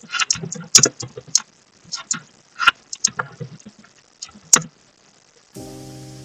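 Irregular sharp clicks and knocks, a few of them loud. About five and a half seconds in, a sustained musical chord starts abruptly and slowly fades.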